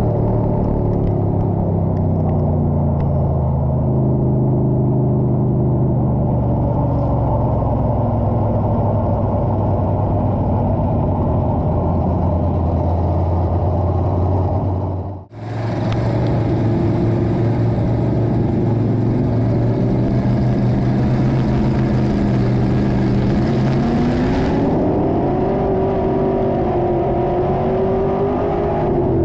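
IMCA Stock Car's V8 engine running hard at racing speed, heard from inside the cockpit, its pitch shifting with the throttle and climbing as it accelerates near the end. About halfway the sound cuts out for a moment, then a steady hiss sits over the engine for several seconds.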